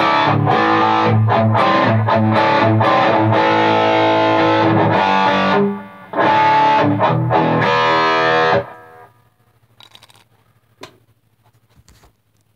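Distorted electric guitar playing through a modified Jet City JCA100H amp head's crunch channel, driven by a Demon Tube Screamer-style overdrive pedal and a delay. The playing breaks off briefly about six seconds in, then stops about eight and a half seconds in, leaving the amp's low hum and a few small clicks.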